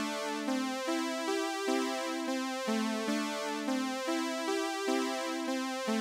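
Synthesizer loop played back by the BeepBox web music editor: a bright sawtooth-lead melody over other synth voices, a new note about every half second at a tempo of 150.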